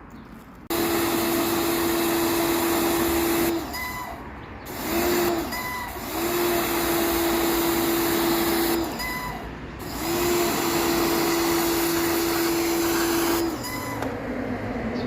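A loud electric motor running with a steady hum and a rushing noise. It starts abruptly about a second in and runs in stretches of a few seconds, cutting back briefly three times.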